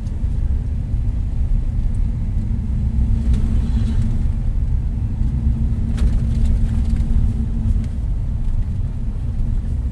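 Pickup truck heard from inside the cab while driving slowly: a steady low engine and road rumble with a faint steady hum. There is one light click about six seconds in.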